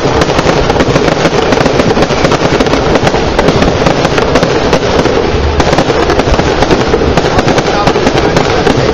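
Aerial fireworks going off in a rapid, continuous barrage of overlapping bangs and crackles, with no pause between them.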